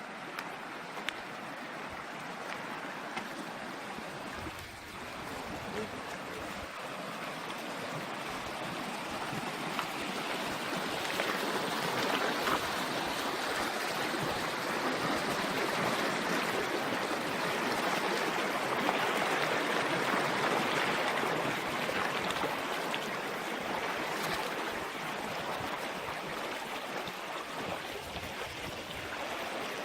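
Water running in a stream: a steady rushing that grows louder through the middle and eases slightly toward the end.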